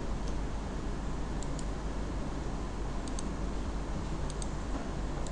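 Faint computer mouse clicks, mostly in quick pairs about every second and a half, over a steady low hum and hiss of the recording.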